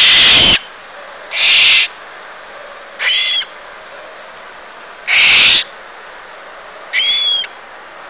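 A parrot chick giving five loud, harsh, raspy screeches, each about half a second long and spaced a second or two apart.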